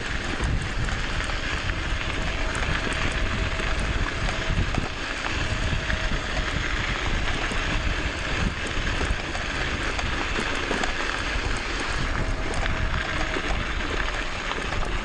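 Riding noise from an Emove Roadrunner electric off-road bike under way: wind buffeting the microphone and a steady hiss of tyres, with a faint thin motor whine at times.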